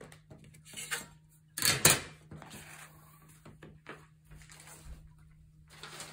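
Craft tools and paper handled on a cutting mat: a metal triangle ruler is lifted and set aside, with a knock about a second in and a louder clatter about two seconds in, then light paper rustling and small taps. A faint steady hum sits underneath.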